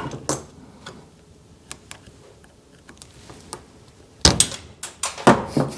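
Small metallic clicks and scrapes of a hand pick prying at a roller chain's master-link clip, then a sudden louder clatter and knocks about four seconds in as the clip springs free.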